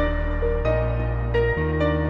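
Calm background music: soft sustained synth chords over a steady bass, changing about every second, with light plucked or struck notes.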